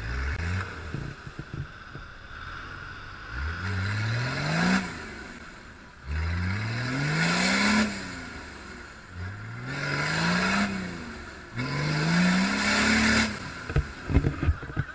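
A 4x4's engine revving hard four times in a row, each rev climbing in pitch over a second or two, as the wheels spin through deep mud with a rushing spray of mud on each rev. A few sharp knocks near the end.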